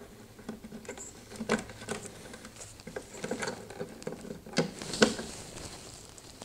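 Plastic wiring-harness plugs being pushed onto a GE refrigerator control board's pin headers: scattered small clicks and scratchy rustling of wires. There are a few sharper clicks, the loudest about five seconds in.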